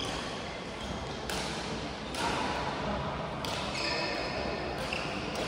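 Ambience of an indoor badminton court: players' footfalls and shoe squeaks on the court floor in an echoing hall, with faint voices in the background.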